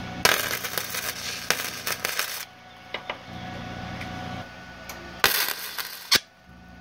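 Wire-feed welder tack-welding an exhaust header tube: a crackling arc burst of about two seconds, then a second, shorter burst of about a second near the end.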